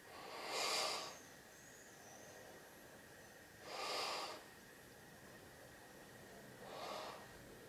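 A man breathing hard three times, each breath about a second long and about three seconds apart, the last one weaker, as he strains to hold a heavy hand gripper closed.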